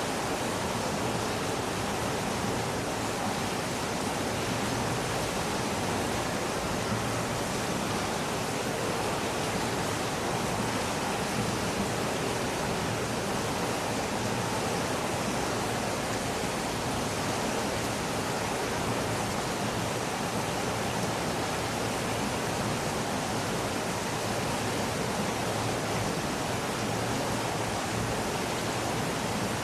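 Public swimming pool ambience: a dense, steady wash of children's voices and splashing water blended together, with no single voice or splash standing out.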